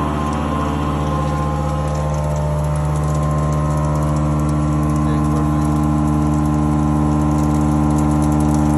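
5-axis CNC milling machine running during a milling job: a steady machine hum made of several held tones, with no change in pace.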